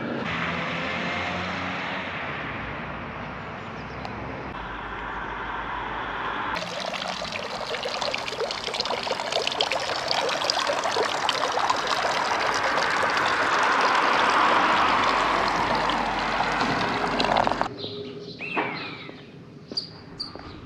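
Water streaming from the two spouts of a village fountain and splashing into its stone basin: a steady rushing splash that grows louder, then cuts off suddenly a few seconds before the end.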